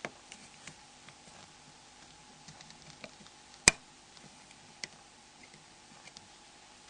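Small scattered clicks and ticks of a dental pick prying the display shield off a Nokia N73 phone, with one sharper click about three and a half seconds in and a lighter one about a second later.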